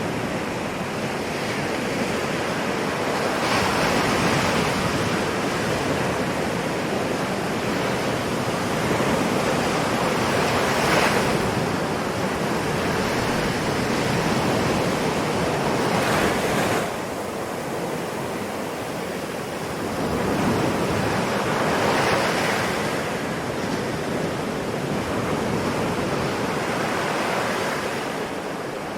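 Ocean surf: a continuous wash of waves breaking and running up the shore, swelling into a louder break every several seconds.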